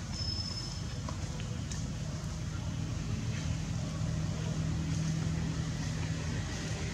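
Steady low hum of a running engine. A brief thin high whistle sounds in the first second.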